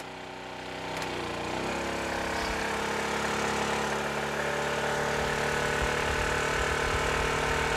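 Honda EU2000 inverter generator's engine running; a click about a second in as the second heater switches on, then the engine speeds up and holds at a higher, louder speed as it takes on nearly its full load of about 1.8 kW.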